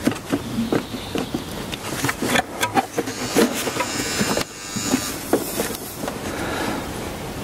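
Handling noise from fitting a rubber coolant hose onto the thermostat housing in a BMW E38 engine bay: irregular clicks, knocks and rubbing of rubber against metal.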